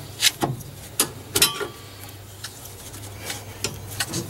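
Hand tools and metal fuel-line fittings clicking and clinking as they are handled and worked, about eight separate short knocks, one of them ringing briefly, over a steady low hum.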